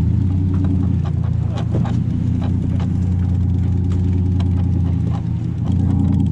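Fishing boat's engine running steadily in a low hum, its note shifting slightly twice, with a few scattered clicks and knocks.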